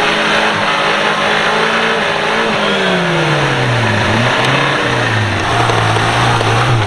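Off-road 4x4's engine working under load: the revs sag slowly, pick up sharply about four seconds in, then hold fairly steady, over the rumble of the drive.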